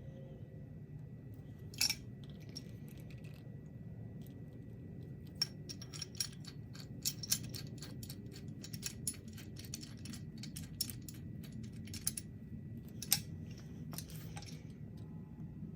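Light metallic clicks and clinks of small metal parts being handled, a quick irregular run of them through the middle, over a low steady hum.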